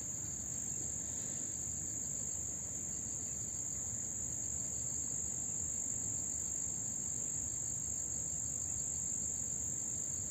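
A steady, high-pitched insect chorus, cricket-like, shrilling without a break, over a low even rushing background.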